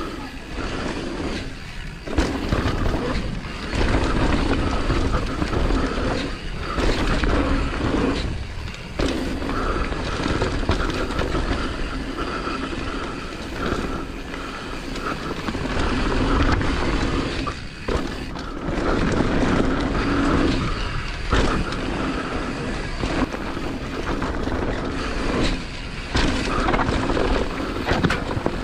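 Downhill mountain bike ridden fast down a dirt trail: tyres rumbling over dirt and rocks and the bike rattling, with wind rushing on the camera's microphone. The noise rises and falls with the terrain and drops away briefly several times.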